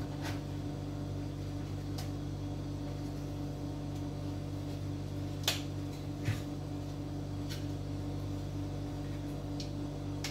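Plastic Raspberry Pi 4 case being pressed and snapped shut by hand: about six sharp clicks, the loudest about halfway through. A steady low hum runs underneath.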